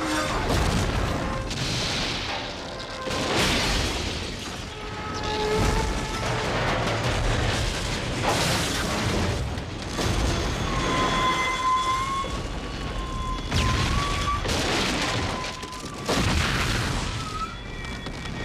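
Film soundtrack of repeated booming, rumbling surges laid under dramatic music, with a thin wavering high tone in the middle.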